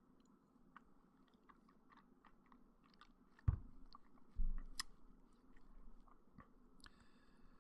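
Faint scattered mouth clicks and smacks close to the microphone, with a sharp thump about three and a half seconds in and a short low thud about a second later.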